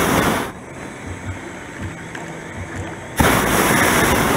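Hot air balloon's propane burner firing in blasts. A short blast cuts off about half a second in, and a longer one starts about three seconds in.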